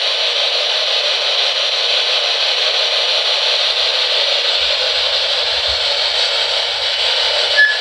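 Spirit box, a radio-sweeping ghost-hunting device, giving out a steady loud hiss of static, with a couple of brief tones near the end.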